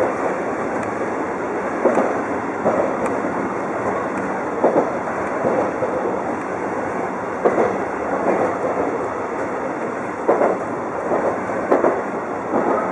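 Running noise of a Chichibu Railway 1000 series electric train (former JNR 101 series), heard from inside the driver's cab as it travels along single track. A steady rumble is broken by short knocks every second or few as the wheels pass over rail joints.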